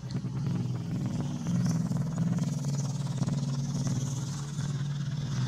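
A motor engine running with a steady low hum, under a faint steady high hiss.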